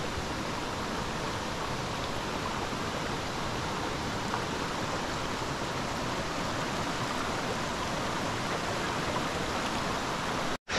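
Shallow creek water running steadily over rocks and boulders, an even rushing hiss that drops out for an instant near the end.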